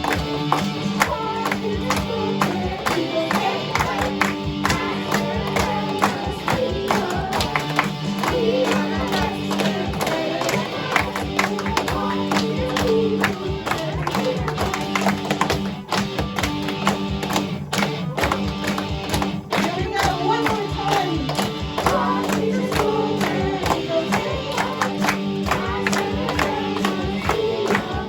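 A group of children singing the school song together over instrumental accompaniment.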